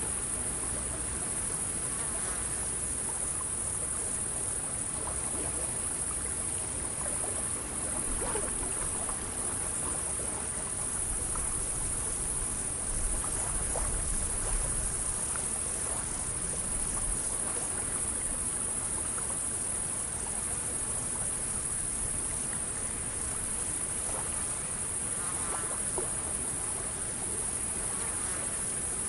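A chorus of insects droning steadily at a high pitch without a break, over a faint low rumble.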